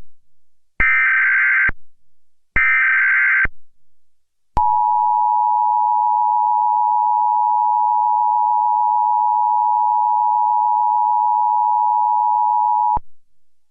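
Emergency Alert System broadcast tones: two bursts of warbling digital SAME header data, each about a second long, are followed by the EAS two-tone attention signal (853 and 960 Hz sounded together). The attention signal holds steady for about eight seconds and then cuts off sharply.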